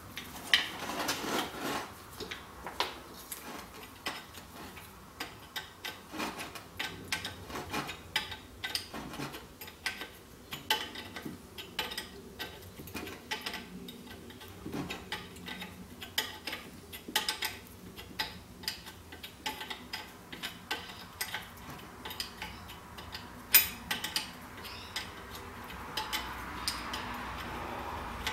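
Hand tools working on a connecting-rod bearing cap, heard as a run of small, irregular metallic clicks and clinks, with one louder clank about three-quarters of the way through.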